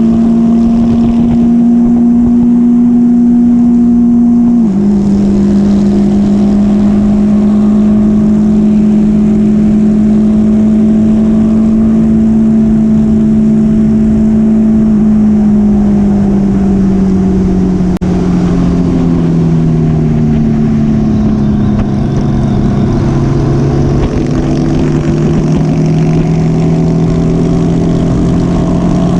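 Motorcycle engine running at a steady cruise. Its note drops suddenly about five seconds in, then sinks gradually past the middle, and a second engine note joins over the second half.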